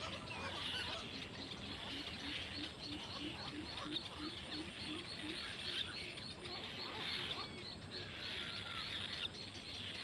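Many birds calling at once. A fast, even series of short high notes, about four or five a second, runs throughout, and a low note repeats about three times a second for the first few seconds and then stops.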